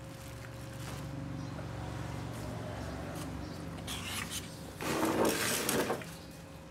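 Thin plastic bag around a foam takeaway food box crinkling for about a second as the box is set down and dogs push their noses into it, over a low steady hum.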